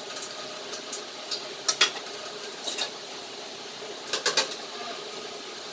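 Spatula scraping and knocking against a pan as fried chicken pieces are stirred through sauce, over a steady hiss. The sharpest knocks come a little under two seconds in and in a quick cluster about four seconds in.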